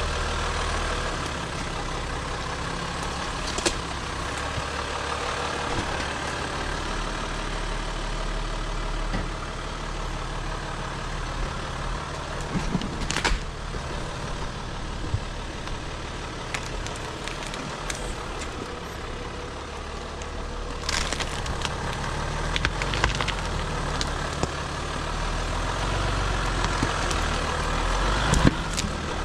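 Jeep Wrangler JL's diesel engine running steadily at crawling speed while the Jeep creeps over forest deadfall, with sharp cracks of twigs and branches snapping and scraping under the tyres and along the body now and then.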